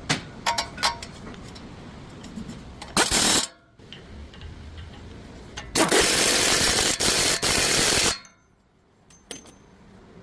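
Two loud bursts of a power tool, a short one about three seconds in and a longer one of about two seconds from about six seconds in. A few light metallic clicks come before them.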